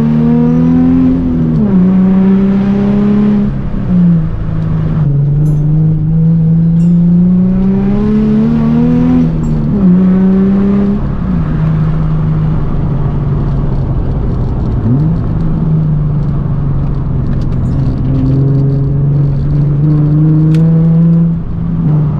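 Nissan 350Z's V6 engine driven hard, loud. Its pitch climbs steadily and drops sharply several times, around a second and a half in, about four seconds in, near ten and eleven seconds, and just before the end, as the revs rise and fall between shifts or lifts off the throttle.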